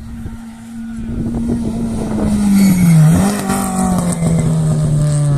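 A rally car's engine at full throttle, getting louder as it approaches. About three seconds in its note dips and settles lower as the car goes by.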